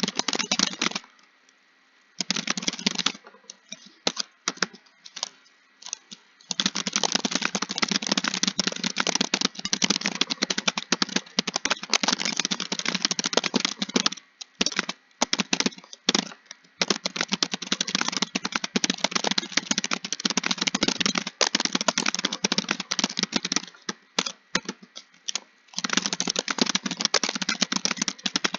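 Fast typing on a computer keyboard: long runs of dense key clicks broken by short pauses, with a near-silent pause and a few scattered keystrokes in the first several seconds.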